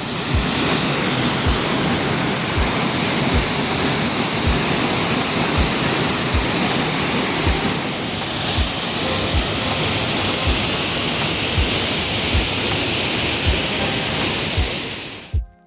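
Waterfall: a steady, loud rush of falling water that cuts off suddenly near the end, with a music track's low, regular beat underneath.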